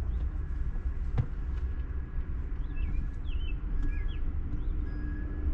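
Outdoor background of a steady low rumble, with a few faint short bird chirps about halfway through and a couple of light clicks.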